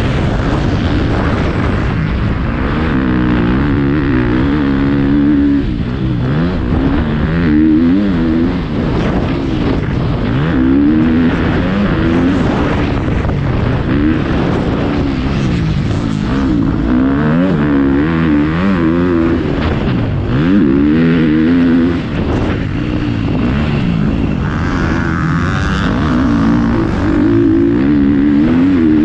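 Motocross bike engine heard from the rider's helmet, revving up and dropping again over and over as the throttle is worked around the track.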